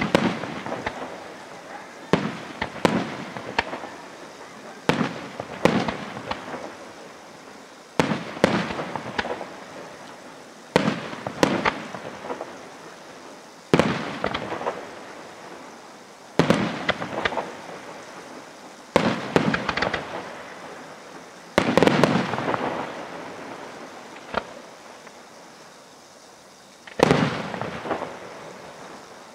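Aerial firework shells bursting one after another, a sharp bang every two to three seconds, each followed by a spatter of smaller crackling reports that die away.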